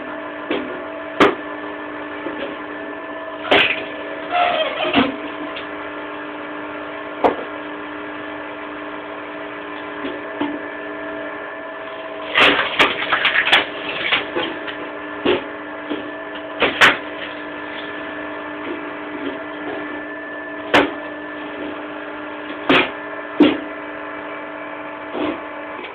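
Electric motor of a screw-cone wood splitter running with a steady hum as logs are pushed onto the spinning threaded cone. The wood gives sharp cracks as it splits, about a dozen across the stretch, bunched around four seconds in and again around twelve to fourteen seconds in.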